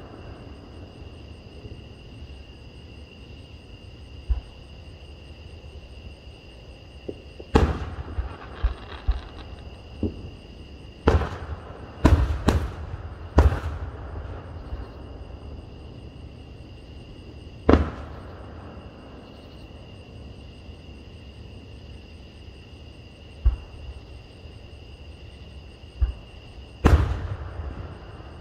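Aerial firework shells bursting at a distance: about ten sharp booms at uneven gaps, with a quick run of four near the middle and the loudest trailing off briefly.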